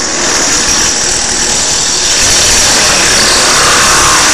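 Drill press spinning a cheap wood-cutting hole saw through the end of an aluminium drink can: a loud, steady grinding noise that starts as the blade bites into the metal.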